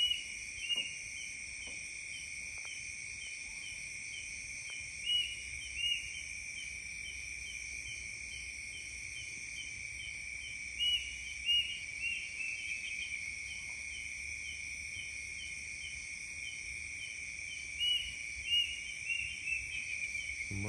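A bird's short, high call notes repeated over a steady, high insect drone. Louder pairs of calls come every five to seven seconds.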